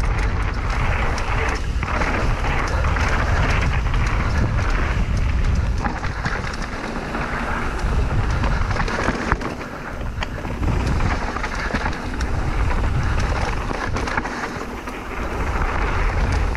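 Heavy wind buffeting a moving camera's microphone, a rough low rumble that swells and dips, with scattered clicks and rattles.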